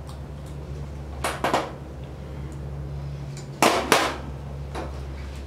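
Electric hair clippers running with a steady low hum as hair is clipped around a dog's facial abscess, broken by sharp clicks and knocks: two about a second and a half in, and a louder pair a little past halfway.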